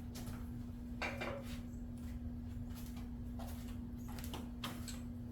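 A few light clicks and knocks of plastic parts being handled as the headlight assemblies are worked on, over a steady low hum.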